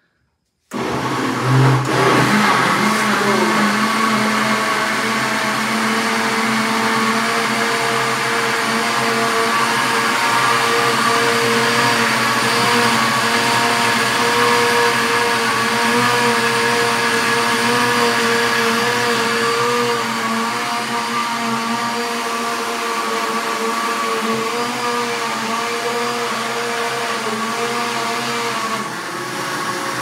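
Countertop blender running steadily, blending chopped carrots with eggs, oil, milk and sugar into a thin carrot-cake batter. It starts suddenly about a second in and shuts off at the end.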